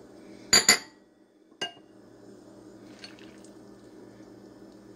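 Small glass ramekins clinking against the rim of a glass mixing bowl as ingredients are tipped in: two sharp, ringing clinks about half a second in, another a second later, then a fainter tap.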